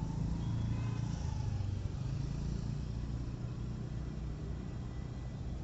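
A motor vehicle engine running nearby, a low steady rumble that is stronger over the first two seconds and then eases.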